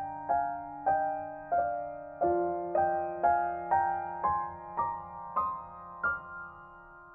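Soft background piano music: single notes struck about twice a second over a held low note, which moves to a new pitch about two seconds in.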